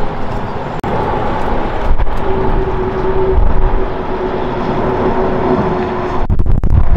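Jet noise from an Airbus A330-300 airliner flying overhead on approach: a steady rush with a held whine that comes in about two seconds in. A burst of low rumble near the end.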